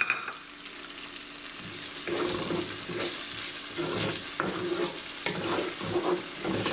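Chunks of onion, tomato and garlic with whole spices sizzling in oil in a nonstick frying pan. From about two seconds in, a wooden spoon stirs and scrapes them around the pan in repeated strokes.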